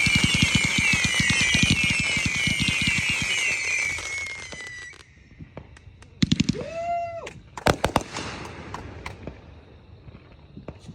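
Consumer fireworks going off: a dense barrage of rapid crackling pops with many whistles falling in pitch, which stops about five seconds in. A brief rising-and-falling tone follows, then a few sharp bangs about eight seconds in and scattered faint pops.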